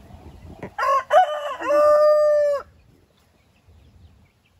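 Lavender Orpington rooster crowing once: a cock-a-doodle-doo that starts about a second in, with a few quick syllables and a long held final note.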